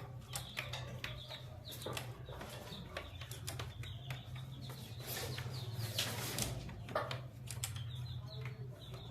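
A caged bekisar chicken, quiet: faint bird calls and scattered clicks and taps over a steady low hum.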